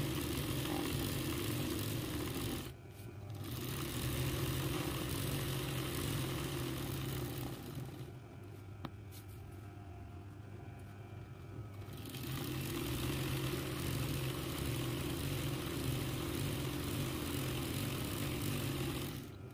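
RANEW 130 zigzag sewing machine running for free-motion embroidery, stitching in spells. It breaks briefly about three seconds in, eases to a quieter hum for several seconds in the middle, runs again, and stops just before the end.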